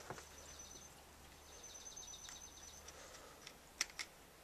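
Quiet room tone with a faint high-pitched tone, then two sharp clicks near the end as a 30-pin dock connector cable is pushed into a first-generation iPad.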